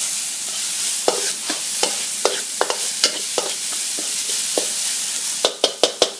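Chopped chilli, garlic and onion sizzling in a stainless steel pan while a spatula scrapes and stirs them, a stroke about every half second. Near the end comes a quick run of about five sharp knocks.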